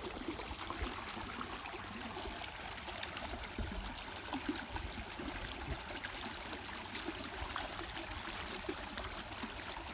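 Irrigation water flowing steadily along an earthen field channel, an even rushing trickle.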